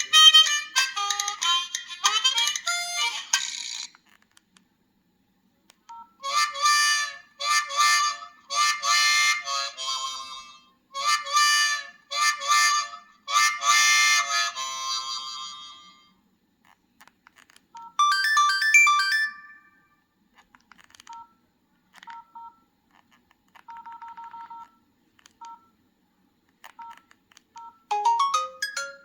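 Preloaded ringtones on an LG 328G phone, played from its speaker one after another: short electronic melodies a few seconds to about ten seconds long, separated by brief silences, with a run of faint beeps in the middle and a new tune starting near the end.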